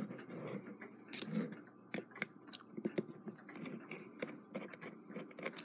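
Irregular small metallic clicks and scrapes from a hand tool and loose parts being handled while an Edison Model D phonograph motor's gear train is taken apart.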